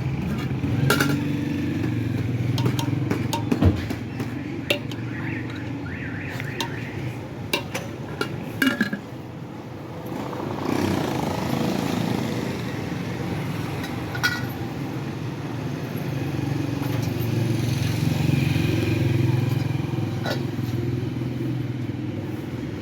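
Motorcycles and other street traffic running past, swelling and fading, with one engine rising in pitch about halfway through. Scattered sharp clinks and knocks sound over it, mostly in the first half.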